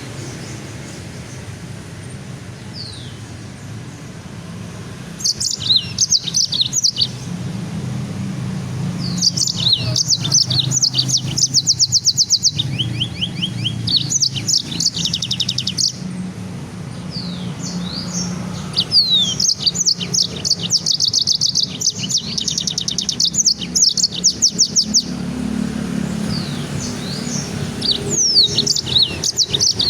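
Songbird singing in phrases of rapid, high chirps and trills that start about five seconds in and come and go with short pauses, over a low steady background hum.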